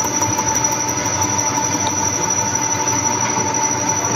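Milling machine running with a small 1 mm cutter digging a groove in a mold: a steady mechanical running noise with a high, steady squeal over it.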